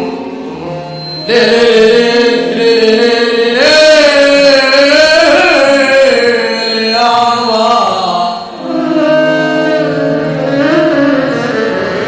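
Egyptian mahraganat song playing: an ornamented, sliding melody line over steady accompaniment, jumping louder about a second in.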